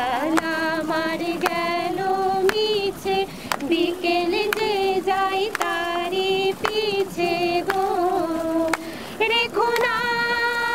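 A woman singing a melodic song solo, with a sharp tap about once a second keeping time; near the end she holds one long note.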